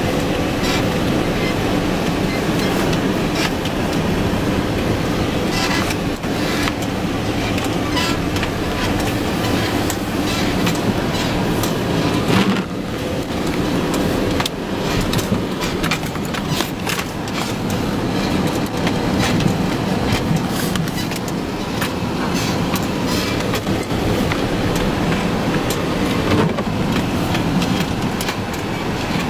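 Vehicle driving along a rough snow-covered track, heard from inside: steady engine and road rumble with frequent short knocks and rattles as it jolts over the bumps.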